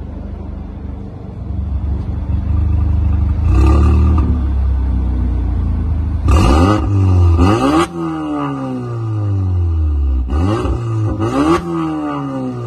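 Volkswagen Golf 7 R's turbocharged four-cylinder idling through an ARMYTRIX valved exhaust, then revved: one light blip, then two pairs of sharp revs that climb quickly and fall back to idle.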